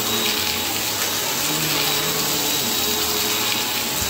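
Small Bissell vacuum cleaner running on a shaggy rug: a steady motor whine over a loud rush of air, its low tone dipping and recovering as it is worked across the pile.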